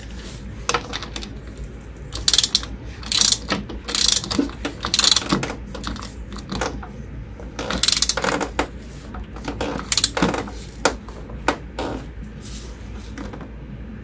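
Socket ratchet wrench clicking in repeated bursts as its handle is swung back and forth, tightening a mobility scooter wheel's axle nut.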